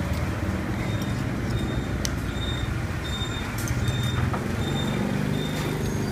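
Steady rumble of street traffic with engines running, with a few light clicks scattered through it.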